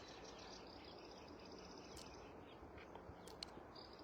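Near silence: faint outdoor ambience with a quiet, high, rapid chirring of insects that fades about halfway through, and a few faint ticks.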